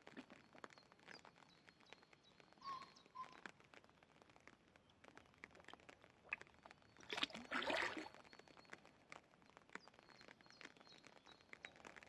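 Carp feeding at the water's surface: faint scattered clicks and pops, and one louder splashing slurp lasting about a second, some seven seconds in, as a carp sucks in floating bread.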